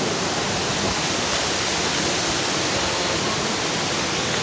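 Waterfall water rushing in a steady, loud, even roar of falling and cascading water.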